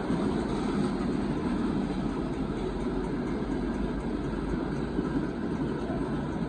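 Open-top freight cars of a Union Pacific rock train rolling past: a steady rolling noise of steel wheels on the rails.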